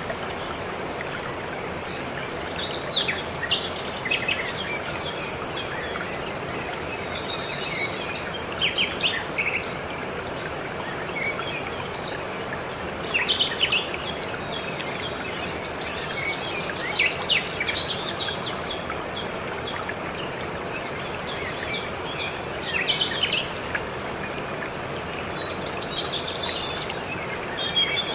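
Waterfall rushing steadily, with songbirds chirping and trilling over it in short irregular bursts.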